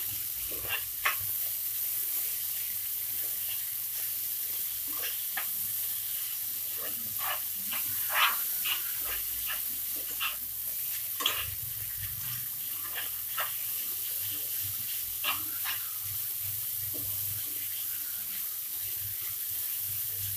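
Stir-fried vegetable hakka noodles sizzling in a non-stick pan while being tossed with a spatula: a steady hiss with irregular short scrapes and taps of the spatula on the pan.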